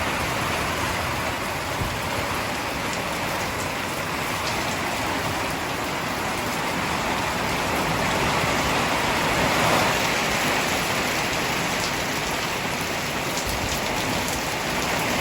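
Heavy rain falling steadily, a dense even hiss of rain on surfaces that swells a little about ten seconds in.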